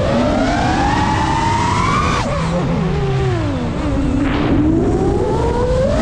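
FPV quadcopter's brushless motors and propellers whining, pitch climbing for about two seconds, dropping sharply as the throttle is chopped, then rising again as it is pushed back up.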